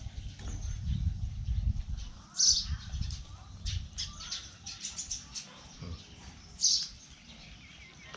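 Small birds chirping: a short high call about two and a half seconds in and again near the end, with a quick run of chirps between, over a low rumble in the first few seconds.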